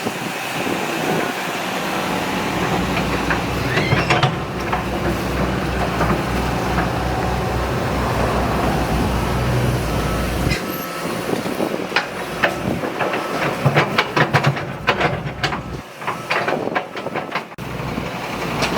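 Heavy diesel machinery running steadily at a construction dig. Near the end comes a quick run of metallic clanks and knocks.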